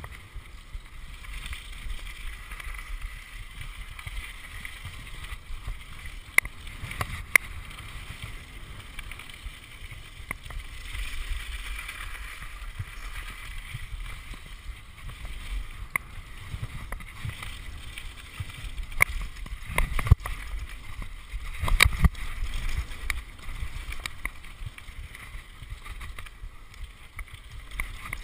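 Mountain bike descending a gravel forest trail at speed: a steady crunch and hiss of tyres on loose gravel with wind rumble on the microphone, broken by sharp rattles and knocks of the bike over bumps, the loudest about twenty seconds in.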